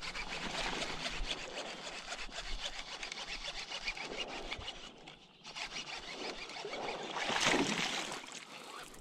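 Baitcasting reel being cranked to retrieve a topwater frog, its gears giving a fast, dense ticking, with a louder burst of noise about seven and a half seconds in.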